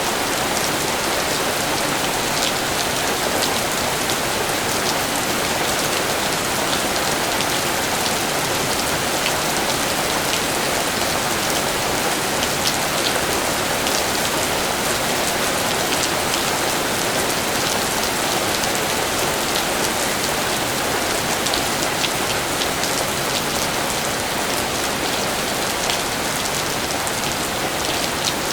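Steady rain falling, a dense even hiss with many small drop ticks scattered through it.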